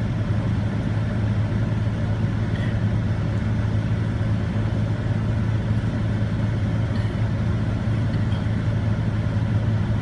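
Steady low hum of an idling vehicle engine, unchanging throughout.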